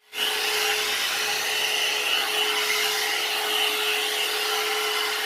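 One-step hot air brush hair dryer running steadily: a constant rush of air with a steady motor whine.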